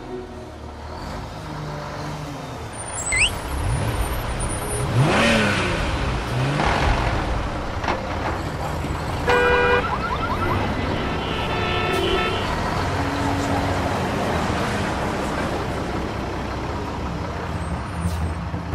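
Street traffic: a steady car-engine rumble with vehicles passing by, their pitch sweeping up and down. A short horn-like tone sounds about nine seconds in, and another near twelve seconds.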